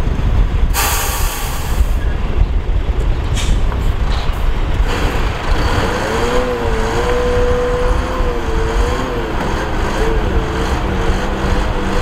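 Heavy 8x4 dump truck's diesel engine running at low speed, with a sharp air-brake hiss about a second in. From about halfway a wavering whine joins as the engine drives the tipper hydraulics and the loaded bed begins to rise.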